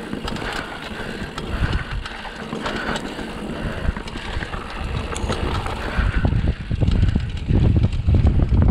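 Mountain bike running down a rough trail, with dense rattling and clicking from the bike throughout. A low wind rumble on the microphone grows over the last few seconds.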